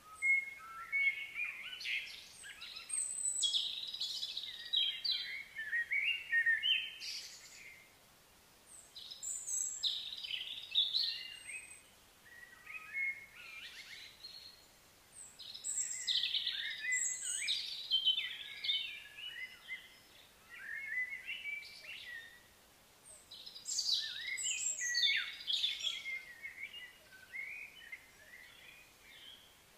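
Birds singing and chirping: busy, high twittering phrases that come in bursts of a few seconds, with short lulls between them.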